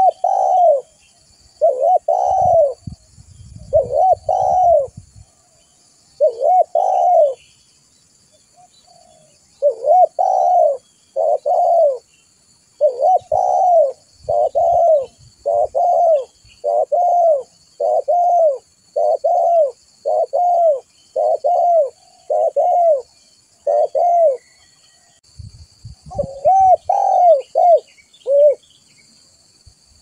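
Spotted dove (tekukur) cooing: repeated rolling coos in phrases, with a long, even run of about one and a half coos a second through the middle. Faint chirps of small birds and a few short low rumbles sit underneath.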